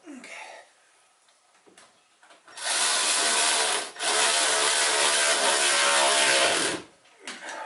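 Cordless electric ratchet running in two runs, about a second and then nearly three seconds, with a brief break between.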